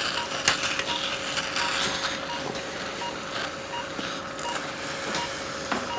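Theatre patient monitor beeping steadily, a short beep about every three-quarters of a second in time with the heartbeat, over a steady hum, with a few soft clicks of surgical handling.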